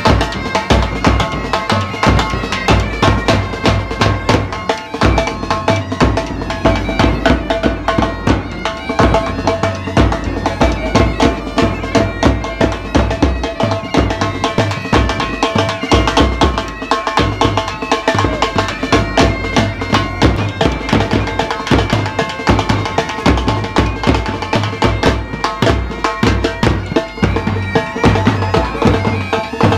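Pipe band playing: bagpipes sounding a held drone and melody over drums beating a steady rhythm.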